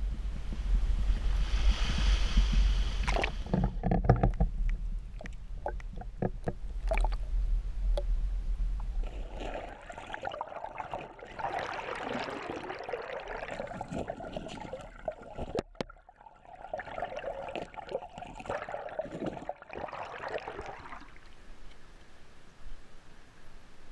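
Low rumbling wind and handling knocks on a GoPro in its waterproof housing. Then, from about ten seconds in, the muffled rushing and gurgling of river water with the camera under the surface, broken by a sharp knock and a brief lull near the middle.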